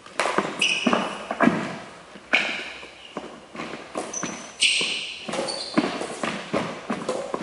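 Badminton rally: rackets striking the shuttlecock with a series of sharp cracks, mixed with shoes squeaking and feet thudding on a wooden court floor, ringing in a large hall.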